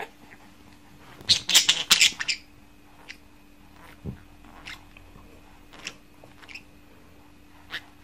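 A small yellow pet parakeet squawking harshly in a quick run of calls about a second in, then giving short, sharp chirps every second or so while a baby handles it.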